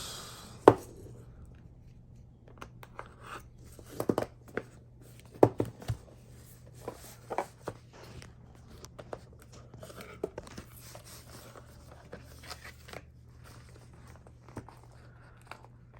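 Packaging being handled as items are taken out of a box: irregular clicks, taps and short rustles of plastic and cardboard, the sharpest about a second in, over a faint steady hum.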